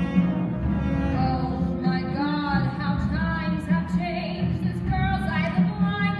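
Stage-musical song: cast singing over accompaniment with a steady beat.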